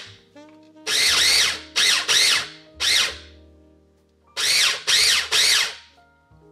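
Small electric mini food chopper pulsed in seven short bursts, its motor whirring up and winding down each time as it minces onion, red pepper, garlic, cilantro and tomato for sofrito. The bursts come in two groups, four and then three after a short pause.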